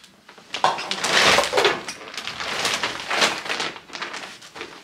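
Plastic shopping bag rustling and crinkling as hands dig through it and hold it open, loudest about a second in and again after three seconds.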